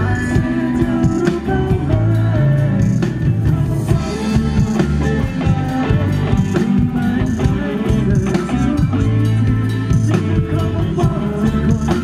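Live rock band playing loud and continuous: electric guitars, electric bass and a drum kit.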